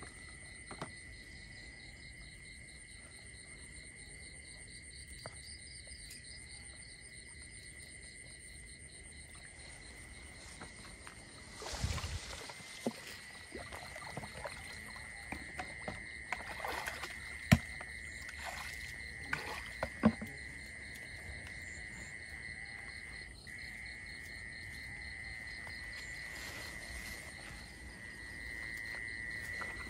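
Steady high chirring of night insects such as crickets, with a pulsing trill in the first third. From about twelve seconds in, water splashing and sloshing with a few sharp knocks as a mesh fish trap is tipped into a plastic bucket at the water's edge.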